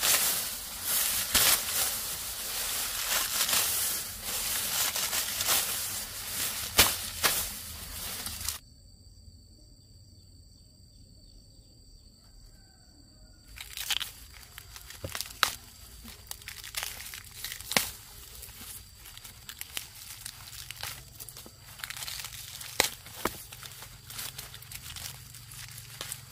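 Lemongrass stalks and dry leaves rustling, crackling and tearing as they are pulled and handled. The dense crackle cuts off abruptly about eight seconds in to a much quieter stretch with a faint high steady tone, then scattered snaps and rustles return.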